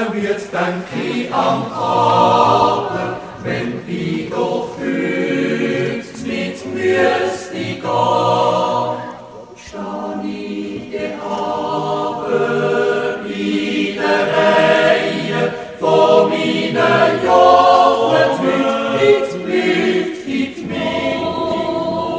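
Background music: a choir of several voices singing in harmony, in sung phrases with a brief pause about ten seconds in.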